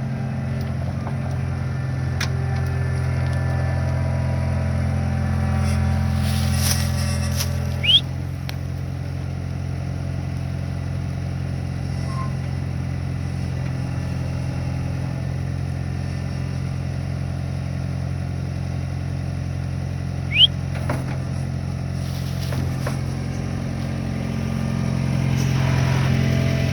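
Skid steer loader's engine running steadily while the machine is driven, with two brief sharp rising squeaks, about eight seconds in and again about twenty seconds in.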